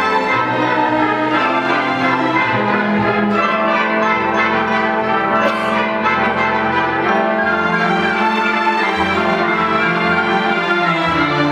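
Symphony orchestra playing a classical piece, with the full string section bowing.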